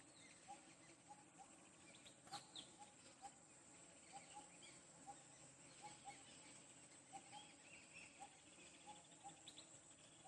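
Faint wild scrubland ambience: insects drone steadily at a high pitch while birds call, one repeating a short low note roughly twice a second among scattered higher chirps. A single brief click about two seconds in.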